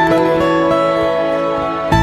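Background music: gentle plucked guitar with sustained chords, changing chord near the end.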